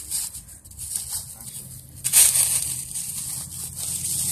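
Dry leaf litter and twigs crackling and crunching as a hand brushes and scrapes at the forest floor, with a louder crunch about two seconds in.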